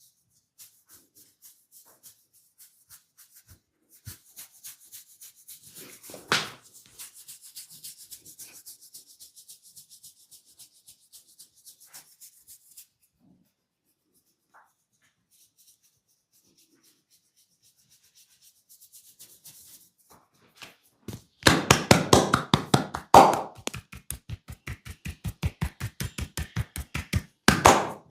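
Hands working a scalp in a head massage: fingers scratching in quick, light strokes with one sharper snap about six seconds in, then after a short pause fast rhythmic hand tapping at about five strikes a second, louder in places.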